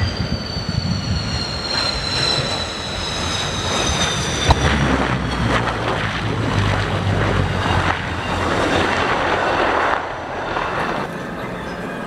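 MiG-29's twin turbofan engines whining with a slowly falling pitch as the jet touches down, then a single sharp snap about four and a half seconds in as the drag parachute opens. A heavier low rumble of the engines and rollout follows, dropping off sharply about ten seconds in.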